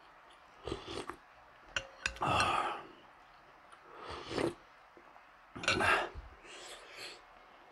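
Soup being slurped from a spoon, several short noisy sips, the loudest a little over two seconds in. Just before that loudest sip, the spoon clinks once against the bowl with a short ring.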